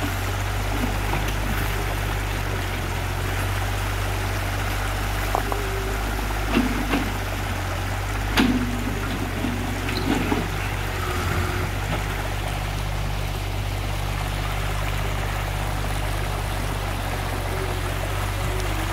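Muddy, swollen stream rushing over rocks, over the steady low hum of a mini excavator's diesel engine, with a few short knocks near the middle.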